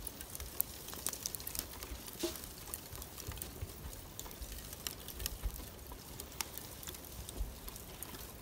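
Lump charcoal burning in a portable steel mangal, giving off scattered, irregular faint crackles and pops as the coals burn down toward grilling heat. A low rumble runs underneath.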